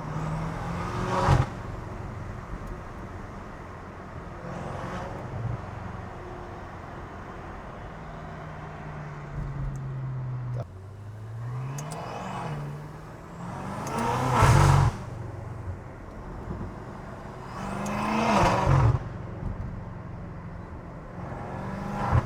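BMW F90 M5's twin-turbo V8 with aftermarket front-mount intakes, catless downpipes and cat-back exhaust accelerating in bursts, the revs climbing and dropping at the shifts. There is a short loud burst about a second in, then two longer pulls that rise in pitch to loud peaks past the middle and near the end, with the engine cruising steadily in between.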